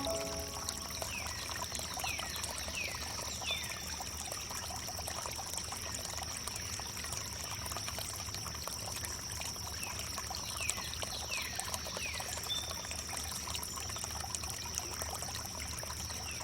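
Water trickling and pouring steadily over wood, with a steady high-pitched tone beneath it. Short downward-sliding whistles come in two runs of three or four, about a second in and again about ten seconds in.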